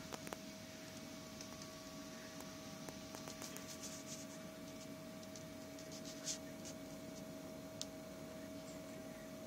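Faint steady electrical hum from nearby equipment, with a few light clicks and ticks scattered through it, the sharpest about six seconds in.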